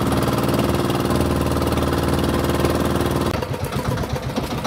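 Small engine of an outrigger bangka fishing boat running steadily under way. About three seconds in it drops to a quieter, pulsing chug.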